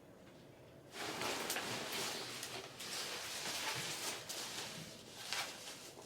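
Clothes rustling as they are handled, starting about a second in, with a few small clicks mixed in.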